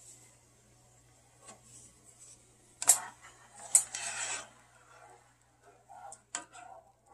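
A spoon knocks against a saucepan and stirs the brine inside it. There are two sharp knocks about three and four seconds in, then a short scrape, and a few lighter taps near the end.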